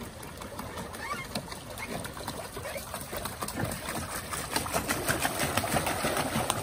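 Pedal boat's paddle wheel and pedals turning, a rapid run of clicks over churning water that grows louder in the second half.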